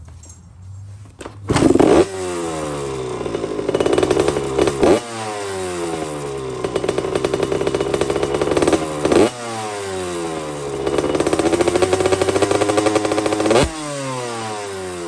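Motorcycle engine running hard, starting about a second and a half in. Its pitch climbs and falls over and over in cycles of a few seconds, with a sharp break at each change.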